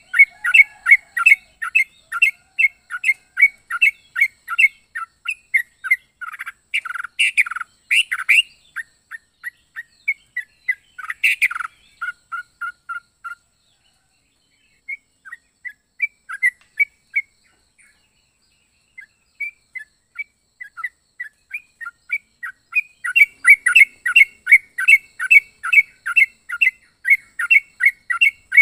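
Yellow-vented bulbul (trucuk) calling in fast runs of short chirps, about three a second, with a few louder, harsher notes about seven and eleven seconds in. The calling stops for a few seconds near the middle, then comes back louder and denser near the end.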